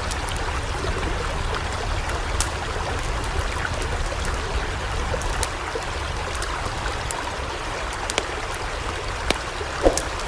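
Floodwater flowing steadily, with a few scattered sharp ticks and a short knock near the end.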